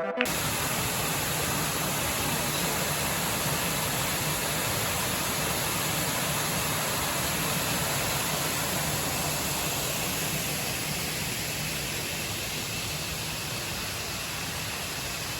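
Waterfall: a steady, even rush of falling water, easing slightly near the end.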